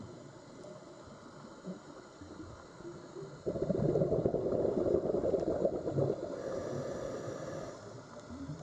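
Underwater sea sound: a low gurgling rush of water, with a sudden louder surge of bubbling about three and a half seconds in that eases off a few seconds later.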